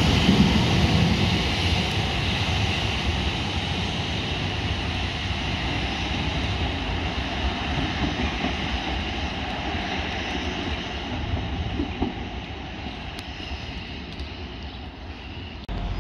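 Two coupled Class 153 diesel railcars pulling away under power, their diesel engines running and the sound fading steadily as the train draws off down the line. The sound breaks off abruptly just before the end.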